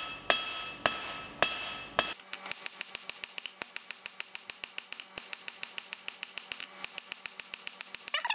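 A 2.5 lb cross peen hammer striking a red-hot 16 mm square steel bar on an anvil while forging a square taper. The first four blows are loud and ring out, about two a second. About two seconds in, the sound changes abruptly to a fast, thinner patter of blows, about eight a second, as the hammering footage is sped up.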